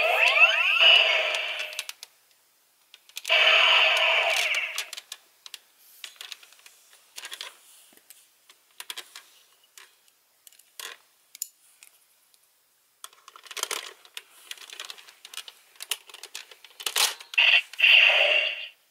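Electronic sound effects from a Gokaiger pirate-ship toy gun's small speaker: a burst in the first two seconds and another from about three to five seconds in. Sparse clicks and snaps of hard plastic parts being handled and fitted follow, and another electronic sound plays near the end as the toy's blue light comes on.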